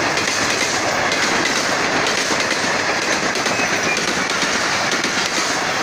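Pakistan Railways passenger coaches running past close by: a steady, loud rush of wheels on rail.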